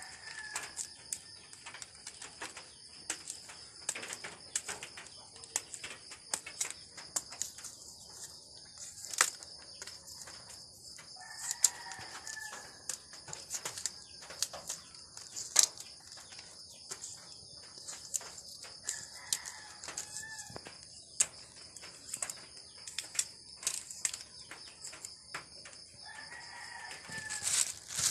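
A kitchen knife peeling and cutting cassava root, many sharp scraping clicks, over a steady high chorus of night insects. A bird calls several times, about every eight seconds.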